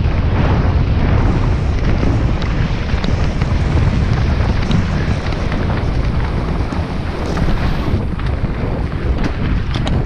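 Wind rushing over a camera microphone on a mountain bike going down a downhill trail: a loud, steady rush. Light clicks and rattles run through it, coming more often near the end.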